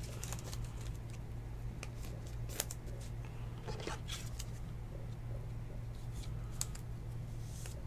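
Faint scrapes and light plastic clicks as a trading card in a soft sleeve is slid into a rigid plastic toploader, a few scattered ticks over a steady low hum.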